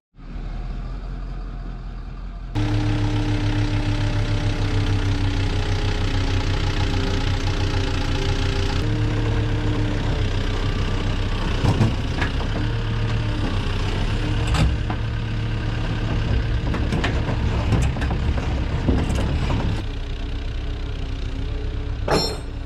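A heavy engine running steadily; it gets louder about two and a half seconds in and shifts in pitch a few seconds later. A few short knocks sound over it.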